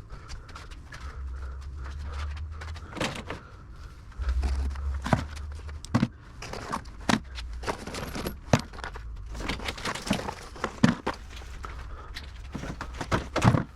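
Irregular knocks, clicks and clinks of objects being handled, over a low rumble.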